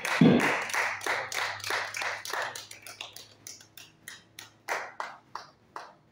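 Hand clapping in applause, about four claps a second, growing weaker and sparser and stopping shortly before the end.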